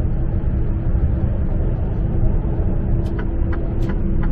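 Cab interior of a Mercedes-Benz GenH2 hydrogen fuel-cell truck, electrically driven, cruising at speed: a steady low road-and-tyre rumble with a steady hum. A few short clicks come about three to four seconds in.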